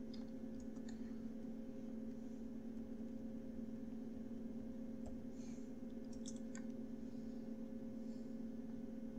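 A few faint computer keyboard keystrokes in small clusters, in the first second and again about five and a half to seven seconds in, over a steady low hum.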